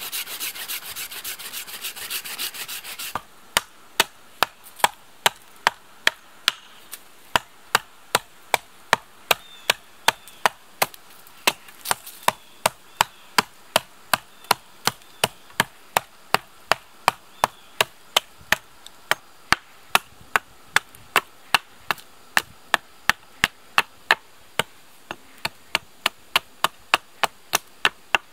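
Folding hand saw rasping through a log for about three seconds, then a hatchet chopping into a log at a steady pace of about two strikes a second, cutting a notch.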